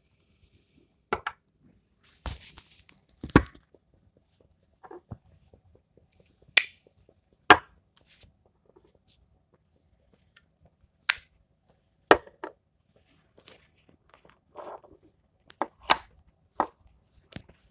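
Zippo lighter being handled: a string of sharp metal clicks from the hinged lid flicking open and snapping shut and the flint wheel being struck, with a couple of short scraping hisses between them.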